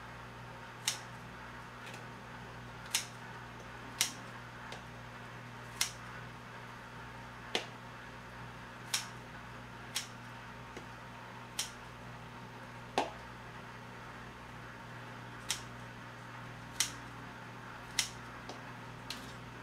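Kitchen scissors snipping kimchi in a bowl: a short, sharp snip every second or two, about a dozen in all.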